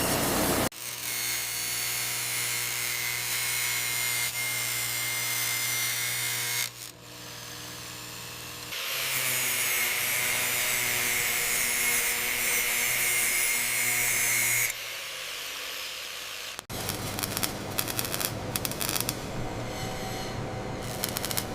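Factory machine noise: a steady mechanical hiss and hum like power tools running, changing abruptly every few seconds, with a burst of crackling near the end.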